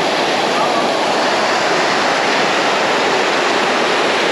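Waterfall cascading over large granite boulders: a loud, steady rush of falling water.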